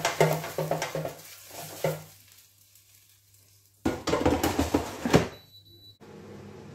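Chopped pork pieces rattling and sliding in an air fryer basket as it is shaken, about three shakes a second, stopping about two seconds in. Around four seconds in the basket clatters as it is pushed back into the air fryer, followed by a short high beep.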